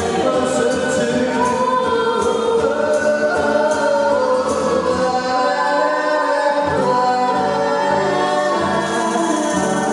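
A band performing live: several voices singing together in harmony, with held notes.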